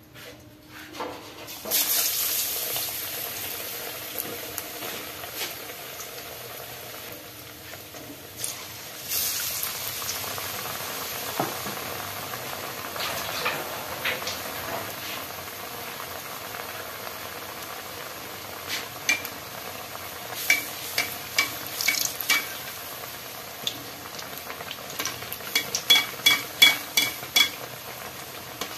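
Batter-coated bread slices deep-frying in hot oil: a sudden loud sizzle as a slice goes in about two seconds in, another about nine seconds in, then steady sizzling. Near the end, a string of sharp clicks from a slotted spoon knocking against the pan while turning the pieces.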